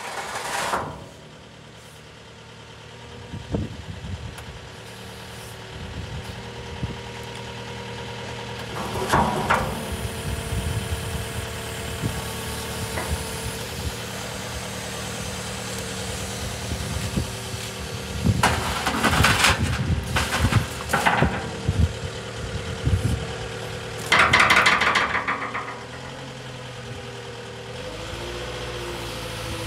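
Caterpillar 908M compact wheel loader's diesel engine running steadily while the loader arm raises and tilts the bucket, with several louder surges of engine and hydraulic noise about a third of the way in and again around two-thirds through.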